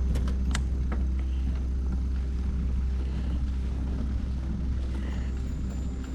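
Steady low wind rumble on the microphone while riding a bicycle, with a few sharp clicks in the first second.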